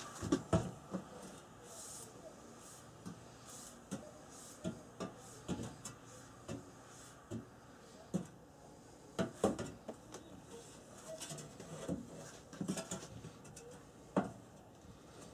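Irregular light knocks and clinks of steel tongs and knife blades being handled at a heat-treating kiln, loudest about half a second in and again around nine to ten seconds.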